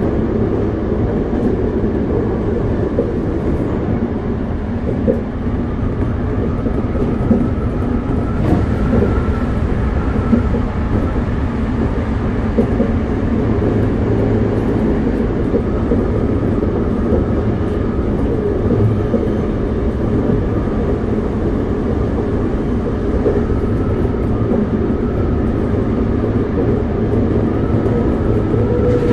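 Toei 5300-series subway car with Mitsubishi GTO-VVVF control running at steady speed, heard from inside the passenger cabin: a continuous rumble of wheels and running gear, with a faint wavering whine at times.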